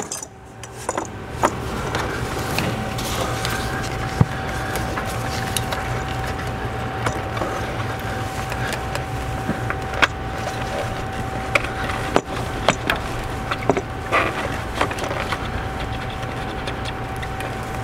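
Hands rubbing and clicking a braided rubber hose and its fitting as it is worked onto an intake-manifold barb fitting: scattered short clicks and rubs, a few sharper ones spread through. Under it runs a steady low hum with a thin steady tone.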